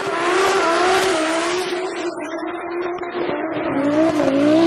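Car doing a burnout: the engine is held at high revs while the spinning tyres squeal with a rush of noise. The pitch wavers up and down, and the noise thins out about halfway through.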